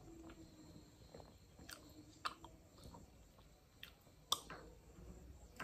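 Crisp wafer ice-cream cone being bitten and chewed: a handful of short, scattered crunches, the loudest about four seconds in.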